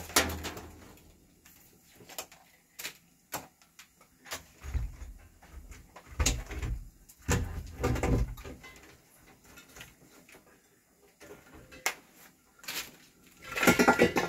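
Scattered light knocks and clicks with a few heavier low thuds, the loudest cluster near the end.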